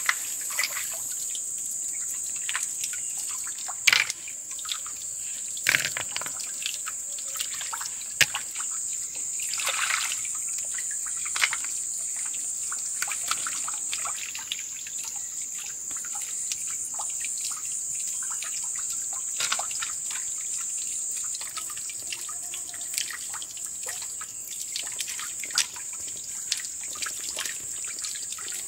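Wet mud squelching and water trickling and dripping as hands dig field snails out of a drained pond bed, with a few sharp clicks. A steady high-pitched buzz sits behind it.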